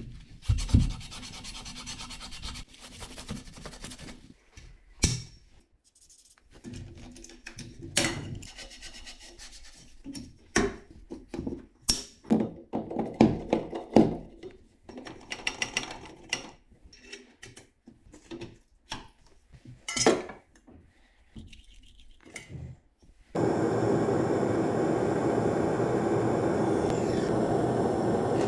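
Rubbing, scraping and tapping of tools on copper pipe, with scattered clicks and knocks. About 23 seconds in, a gas blowtorch lights and burns with a steady, loud hiss for soldering the joint.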